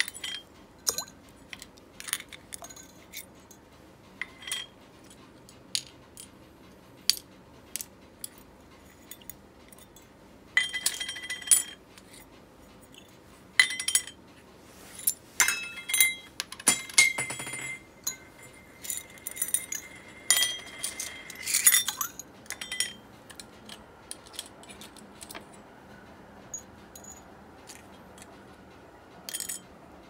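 Small metal parts of an Ambassadeur 1500C baitcasting reel clinking and clicking as the reel is handled. The clicks are irregular, with busier clusters in the middle and a brief metallic ring that hangs on.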